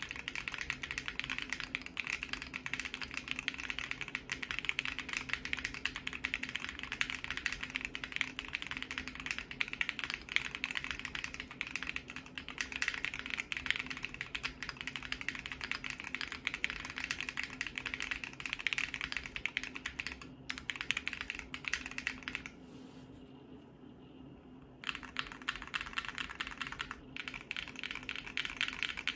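Continuous fast typing on a Bakeneko60 mechanical keyboard with lubed Zaku tactile switches on an FR4 plate and foam in the case, a dense stream of key clacks. The typing stops for about two seconds near the end, then resumes.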